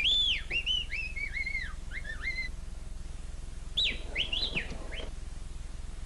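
Chirpy, bird-like whistling in quick rising-and-falling swoops: a run of about a dozen over the first two and a half seconds, then a shorter burst a little after the middle, like a whistled reply heard on the telephone.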